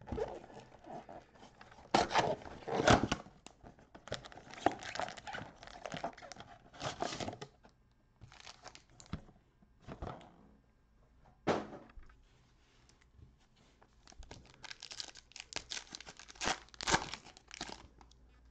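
Cardboard trading-card box being torn open and the foil wrapper of a card pack crinkled and ripped, in irregular bursts of tearing and rustling. The loudest rips come about two to three seconds in, with another busy stretch near the end.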